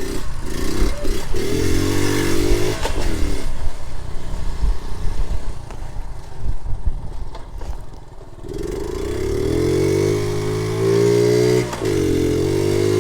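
1976 Honda Z50J1 Monkey's small four-stroke single-cylinder engine running under the rider, easing off for a few seconds midway, then pulling hard again with its pitch rising in steps and a brief drop in the middle of that climb, as at a gear change.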